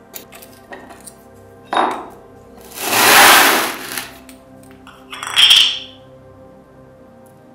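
Rusty sheet-metal parts of a tin oil-lamp burner scraping and clinking as they are handled and pulled apart with pliers: a short scrape about two seconds in, a longer, louder one in the middle, and another about five seconds in, with a few light clicks between, over soft background music.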